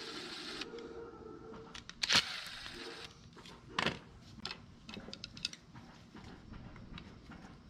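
Metal tools and carburetor parts clicking and knocking at irregular intervals as the bottom float bowl is worked off a Briggs & Stratton plastic carburetor, with a brief hiss at the start.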